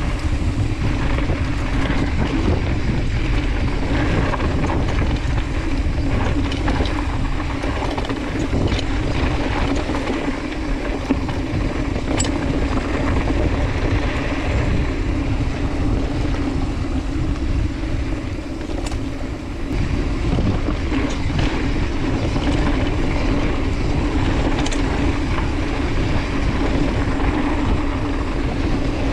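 A mountain bike rolling fast down a dirt singletrack: steady wind noise on the microphone over a constant tyre hum and rumble on the hardpack. A few sharp clicks and rattles from the bike come through along the way.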